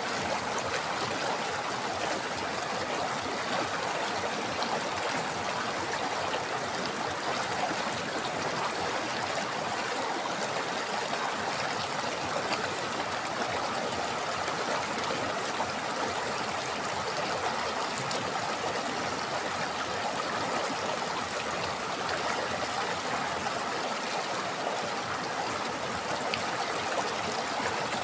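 A river running over stones, a steady rushing and gurgling of flowing water.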